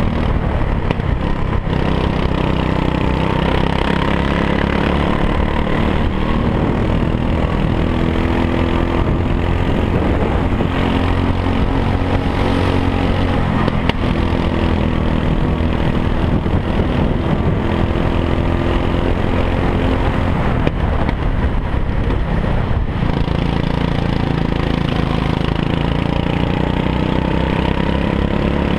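Go-kart engine running hard around a track, heard from on board the kart, its pitch repeatedly rising and falling as the kart speeds up and slows down.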